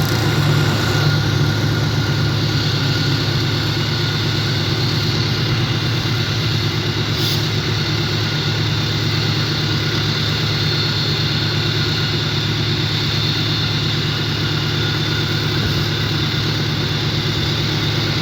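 Diesel engine of a GE CM20EMP (CC 206) diesel-electric locomotive running steadily with a deep, even hum.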